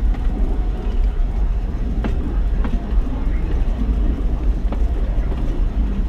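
Alishan Forest Railway train hauled by a DL-41 diesel locomotive, running along the narrow-gauge line: a steady low rumble with a few sharp clicks.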